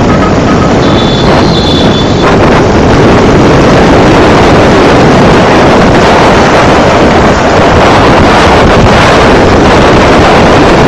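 Loud, steady wind rush buffeting the microphone of a moving vehicle, mixed with engine and road noise from riding in traffic. A brief high-pitched tone sounds between about one and two seconds in.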